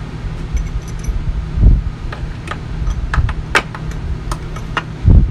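Small metal engine parts clinking as they are handled: a quick run of light metallic clicks between about two and five seconds in, with a dull thump at about a second and a half and another at the end.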